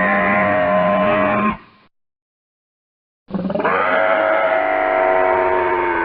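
Allosaurus roar sound effects: a long drawn-out roar that cuts off about a second and a half in, then complete silence, then a second long roar starting a little past halfway and still going at the end.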